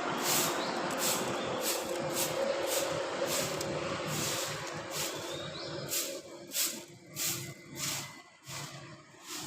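Oriental magpie-robin giving a run of short, harsh calls, roughly two a second, over a steady background rumble that fades about halfway.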